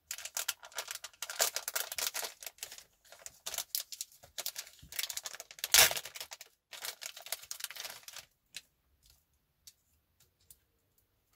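Thin plastic packaging crinkling and crackling as a small postal packet is torn open by hand, with the sharpest crackle just before six seconds in. The rustling dies down to a few faint clicks for the last few seconds.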